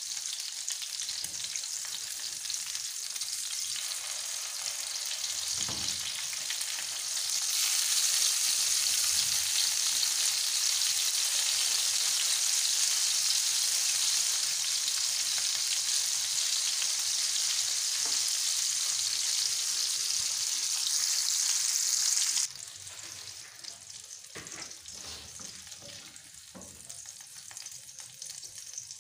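Beef chapli kababs shallow-frying in hot oil in a non-stick pan, a steady sizzle that grows louder about seven seconds in and drops off suddenly about two-thirds of the way through. A few soft knocks near the end come from a spatula working in the pan.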